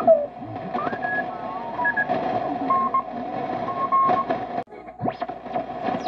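Shortwave radio receiver tuning across a band: a steady carrier whistle, heterodyne squeals that slide down near the start and up again about five seconds in, and short beeping tones.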